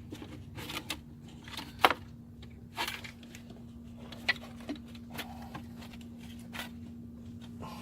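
Hands working engine parts into place: scattered clicks, knocks and rubbing, the loudest a sharp knock a little under two seconds in, over a steady low hum.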